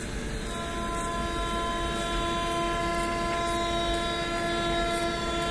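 Train horn sounding one long, steady blast from an approaching train, starting about half a second in, over a low rumble.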